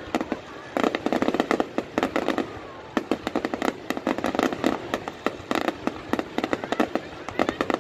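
Fireworks display: dense volleys of sharp cracks and crackling that come in clusters, with a faint whistle now and then between them.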